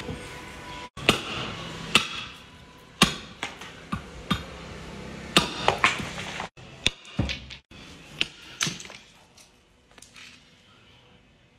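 A heavy hand-forged cleaver chopping into a bone on a wooden stump block. It makes about a dozen sharp, irregularly spaced chops, which thin out to faint taps near the end.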